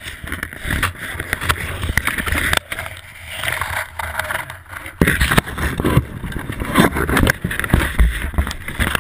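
Trail bike gone down in the scrub: branches and leaves scraping and crackling against the bike-mounted camera, with sharp knocks, and the engine running at low revs underneath.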